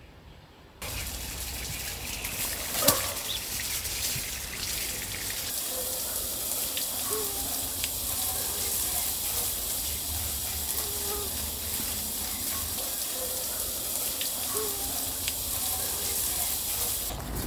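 Garden hose spray nozzle hissing steadily as it waters plants, starting just under a second in, with a single sharp click about three seconds in and a few short bird chirps over it.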